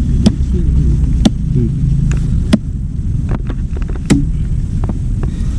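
Diesel engine of heavy machinery running steadily, with a sharp knock every second or so. The engine note drops a little about halfway through.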